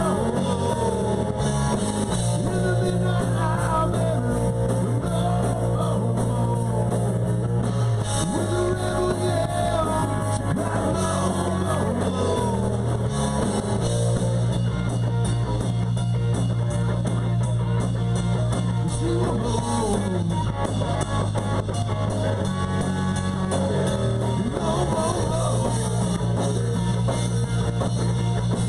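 Live rock band playing: guitar over a sustained bass line, with drum kit.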